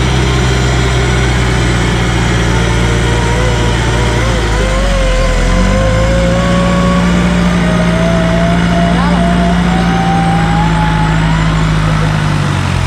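Off-road 4x4's engine running under load as it crawls through deep mud, its note shifting partway through. A thin whine climbs slowly in pitch over several seconds.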